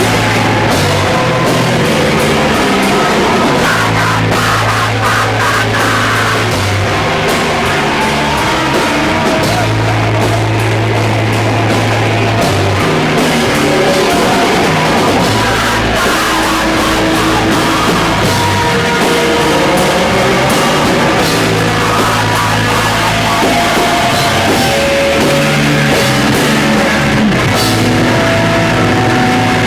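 Hardcore punk band playing live: distorted electric guitar and bass holding heavy low notes that change every second or two, over fast, dense drumming.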